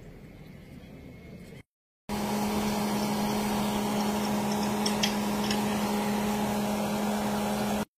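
A parked military pickup truck's engine running at idle: a steady, even hum that comes in suddenly about two seconds in and holds unchanged.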